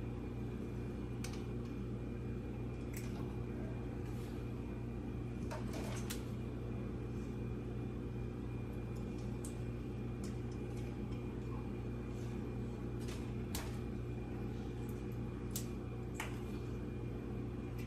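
Scattered light clicks and taps of computer cables and parts being handled during PC assembly, over a steady low hum.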